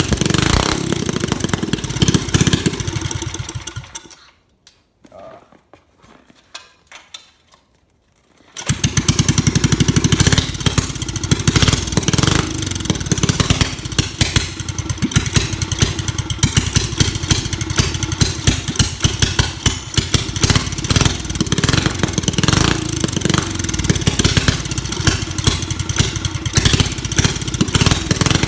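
Small single-cylinder pocket bike engine running loud and rough. It dies away to near silence about four seconds in, then starts up again about four seconds later and keeps running.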